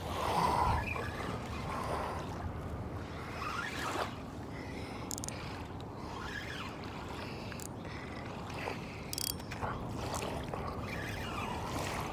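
Muffled rubbing and handling noise from a phone held pressed against skin, over a low steady rumble, with a few short knocks about five and nine seconds in.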